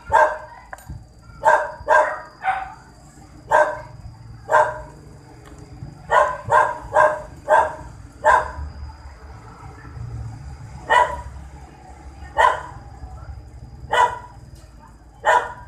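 A dog barking repeatedly, about fifteen short loud barks, some in quick runs of two to four, with a pause of a couple of seconds past the middle.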